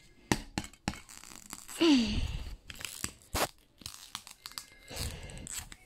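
Shards of a broken plastic DVD cracking and snapping as they are picked at and broken up, a string of sharp irregular clicks and crunches.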